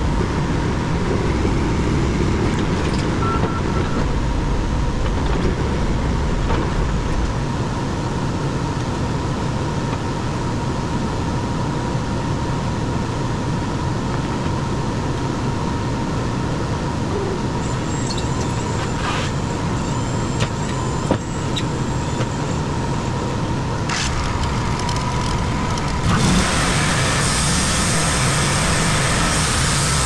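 Backhoe loader's diesel engine running steadily, with a few sharp clicks and knocks between about 18 and 24 seconds in. About 26 seconds in the machine noise gets louder and hissier.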